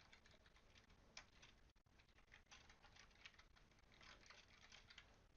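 Faint computer keyboard typing and clicking: many light, irregular key clicks at a very low level.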